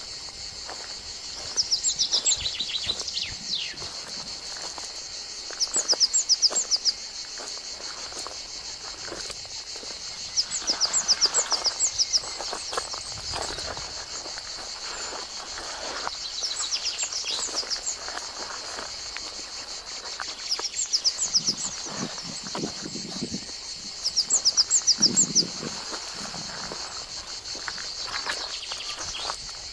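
Steady high drone of insects, broken every four or five seconds by a loud burst of rapid, short, falling high notes. The recordist takes these for the call of a young Accipiter.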